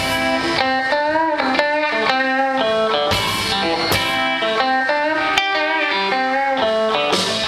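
Live electric blues-rock band playing: electric guitar lines with sliding, bent notes over bass and drums, with a few cymbal crashes.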